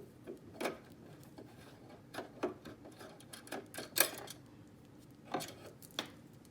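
Small flathead screwdriver working the needle-plate screws of a Brother LX2375 sewing machine: scattered sharp clicks and taps of metal on metal, irregular and about a second apart, as the stubborn screws are worked loose.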